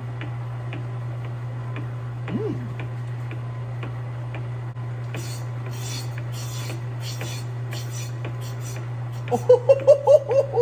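Old Pratt and Whitney metal lathe running at low speed: a steady motor hum with a regular tick about two to three times a second. From about halfway the tool scrapes the spinning metal workpiece in short hissy bursts, and near the end there is a run of loud pitched squeals.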